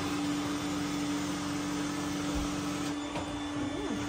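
Vacuum cleaner running steadily: an even rushing noise over a constant hum, with a lower hum dropping out about three quarters of the way through.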